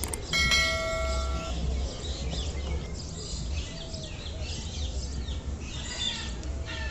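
Many small birds chirping in quick, short falling notes over a low steady rumble, with one held, pitched call lasting about a second near the start.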